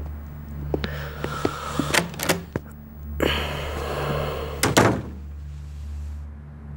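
Footsteps and a few light knocks, then a wooden office door swung and shut with a thud a little past the middle, the loudest sound here.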